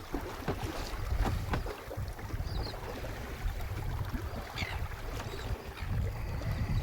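Water lapping and slapping against the hull of a small spritsail boat, with irregular light knocks and a low wind rumble on the microphone.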